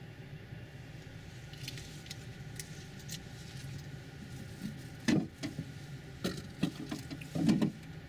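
Low, steady rumble heard from inside a passenger rail coach as a freight train passes on the next track, with scattered clicks and a few louder knocks about five seconds in and again near the end.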